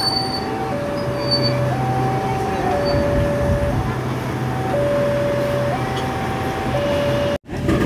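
Level-crossing warning alarm sounding an electronic two-tone signal, switching between a high and a low note about once a second, over the steady rumble of a passing passenger train. The sound cuts out briefly near the end.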